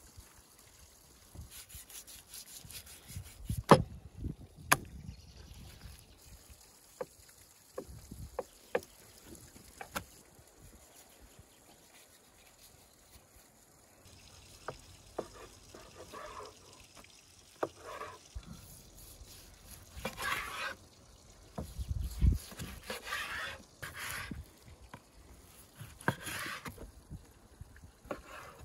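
Knife cutting raw lamb on a wooden cutting board: wet slicing and scraping with scattered sharp knocks of the blade and meat on the board, the two loudest about four seconds in.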